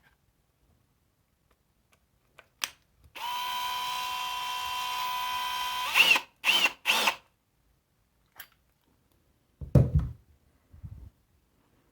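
Cordless drill motor running at a steady speed for about three seconds, then three quick trigger blips that spin it up and back down, on a battery pack whose blown fuse has just been bridged with solder. A few clicks come before it, and a dull thump near the end.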